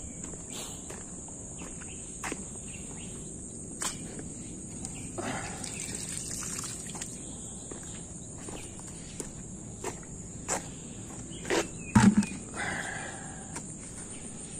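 Steady high-pitched chirring of insects, with footsteps and scattered knocks and rustles of handling. A louder thump comes about twelve seconds in.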